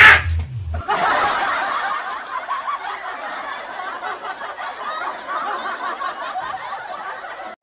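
A loud short burst right at the start, then a laugh track: many people snickering and chuckling at once. It runs steadily and cuts off suddenly at the end.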